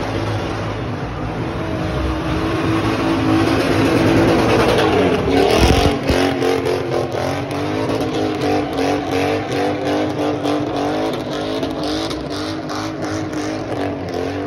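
Car doing a burnout: the engine is revved hard, its pitch surging up and down again and again from about six seconds in, while the spinning rear tyres squeal and hiss on the pavement.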